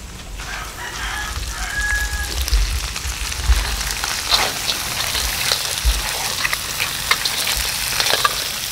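Crabs and prawns frying in a wok, a steady sizzle, with a spatula clicking and scraping against the pan as they are stirred.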